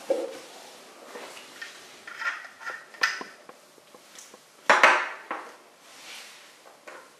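Handling of a black cylindrical electronic shisha head: a run of small clicks and scrapes as it is twisted and pulled apart, then one loud knock about five seconds in as a piece is set down on the hard countertop, with a few lighter taps after it.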